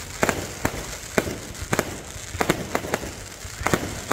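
Aerial fireworks going off in quick, uneven succession: about a dozen sharp bangs and pops over a crackling haze.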